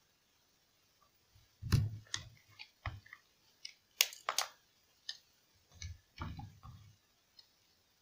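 Plastic TV remote case being pried open with a screwdriver: irregular sharp plastic clicks and snaps as the case clips give, the loudest about four seconds in, with some handling of the casing.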